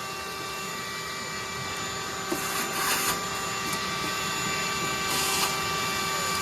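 A small electric motor running steadily with a whine of several constant tones, with two short bursts of hiss about two and a half and five seconds in.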